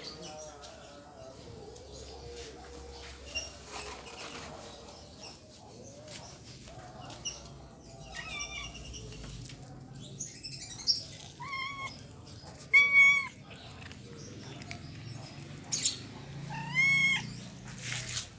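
Stray cat and kittens meowing: a string of short, high-pitched, arching meows, faint at first and louder and more frequent in the second half.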